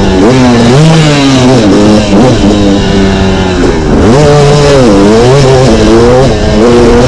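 Dirt bike engine under acceleration, its pitch climbing and dropping back several times as the rider shifts through the gears.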